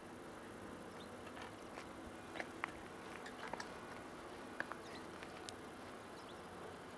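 Faint steady drone of a PKP SU45 diesel locomotive approaching from a distance, with scattered short high chirps and ticks over it.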